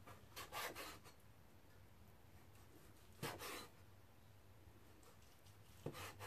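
A cleaver slicing through roast char siu pork onto a wooden cutting board: three short rasping cuts about three seconds apart, the later two starting with a knock of the blade on the board.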